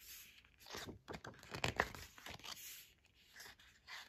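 Stiff paper pages of an album photobook being turned and handled: a run of short, faint rustles and scrapes, the loudest a little under two seconds in.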